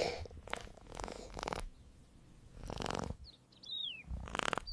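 Domestic cat purring in several short bursts, with a few high, falling chirps near the end.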